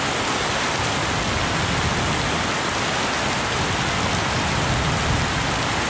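Steady, dense rain falling and splashing on muddy ground and puddles.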